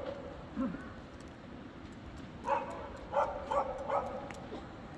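A dog barking four times in the second half, short sharp barks close together, over scattered faint crackling pops from burning pine firewood.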